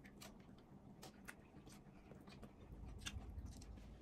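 Faint scattered clicks and ticks of hands picking at fried fish and food on plates, over near-silent room tone.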